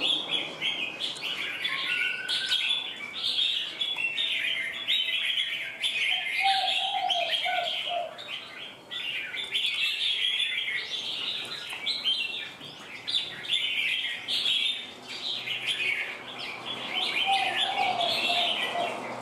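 Several caged red-whiskered bulbuls chirping and singing, their calls overlapping into a dense, continuous chatter, with a few lower warbled phrases about six seconds in and again near the end.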